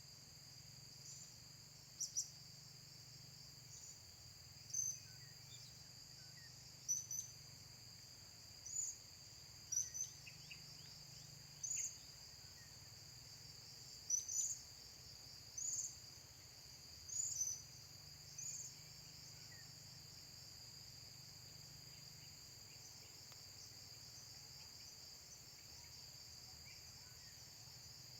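About a dozen short, sharp, high-pitched chirps from blue-crowned hanging parrots (serindik), spaced a second or two apart and stopping about two-thirds of the way through. A steady high insect drone continues underneath.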